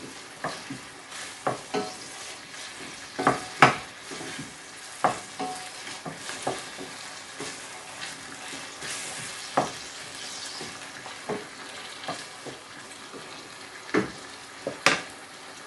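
Chopped tomato, onion and Scotch bonnet pepper sizzling in hot olive oil in a stainless steel sauté pan, with sharp knocks of the pan being stirred and tossed every second or two, the loudest about three and a half seconds in and near the end.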